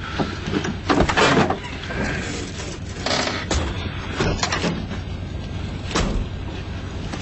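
Car doors shutting: about four sharp thuds a second or two apart, the first the loudest, over a steady low hum.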